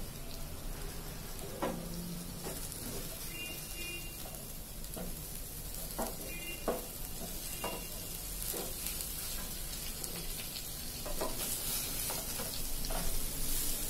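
Marinated chicken leg pieces sizzling in mustard oil in a nonstick frying pan, with a steady hiss and the occasional scrape and knock of a wooden spatula turning them.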